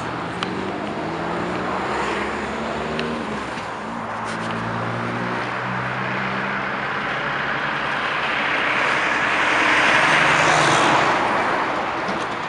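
Heavy diesel traffic: a low engine hum that shifts in pitch a few times, then a rush of tyre and engine noise that swells about ten seconds in and fades near the end as an International semi-truck passes.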